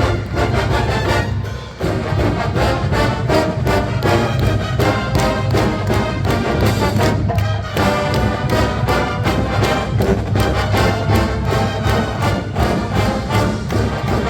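College marching band playing: full brass with the drums keeping a steady beat.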